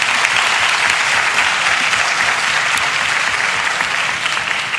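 Audience applauding at the close of a conference talk, a dense, steady clapping that begins to thin out near the end.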